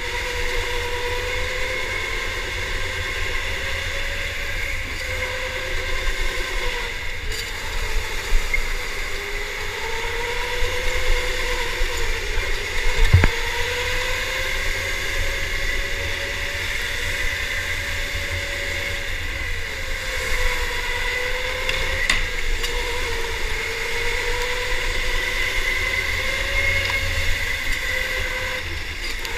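Electric go-kart motor whining onboard, its pitch rising and falling as the kart speeds up and slows through the corners, over a low rumble. One sharp knock about halfway through.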